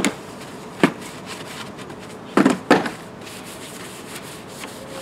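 Soft-bristled hand brush scrubbing degreaser-foamed engine covers in four short swipes, the last two close together. It is agitating freshly sprayed aerosol degreaser on a greasy engine bay.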